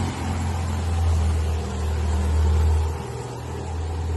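Air-cooled flat-four engine of a Volkswagen Beetle pulling up a very steep street, a steady low drone that dips slightly about three seconds in.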